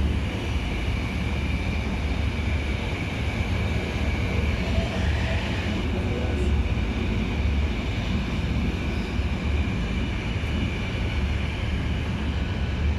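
Diesel fuel motor pump running steadily: a constant low drone with a faint high whine over it.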